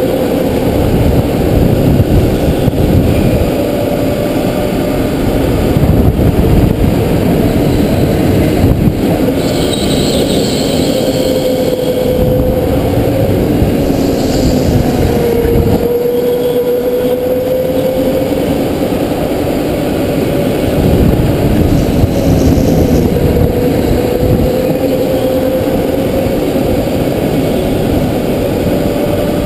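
Rental go-kart heard from a camera mounted on the kart: its motor runs with a steady tone that rises and falls gently in pitch with speed through the corners, over a heavy rumble of vibration and track noise. A brief higher sound comes in about ten seconds in.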